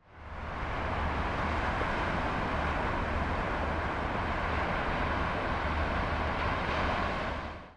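Steady rushing noise of wind and sea with uneven low rumbling buffets, fading in at the start and out at the end.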